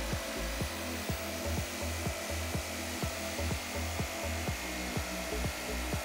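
Makita jigsaw cutting through an acrylic panel, under background music with a steady beat of about four thumps a second.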